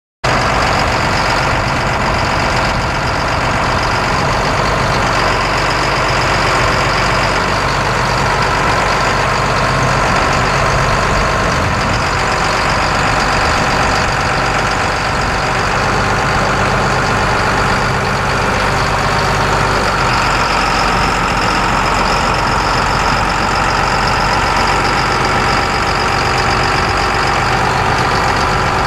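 The John Deere 4560 tractor's 7.6-litre six-cylinder diesel engine running steadily at a low, even speed, with no change in engine speed.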